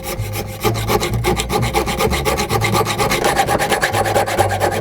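Hacksaw cutting through the original knob on a fishing reel's aluminum handle, with fast, continuous rasping strokes.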